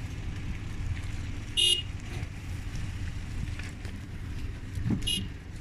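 A car moving slowly with a steady low rumble, and two short high-pitched horn toots about three and a half seconds apart, the first louder.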